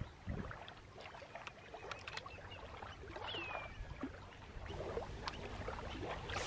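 Faint lakeshore ambience: water lapping at the bank, with a few light clicks from a spinning rod and reel being handled. A short high falling chirp comes a little after three seconds.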